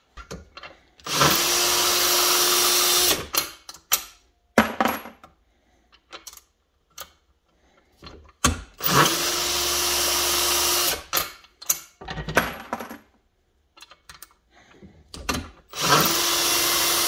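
Cordless drill spinning a case trimmer's cutter, run three times for about two seconds each at a steady pitch, trimming 6.5 Creedmoor brass cases to length. Between the runs, sharp clicks and clinks of the brass cases being taken out and put into the trimmer.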